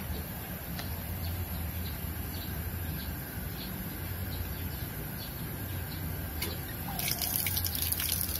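Water dripping, small ticks a few times a second over a steady low rumble, with a louder crackling spell about seven seconds in.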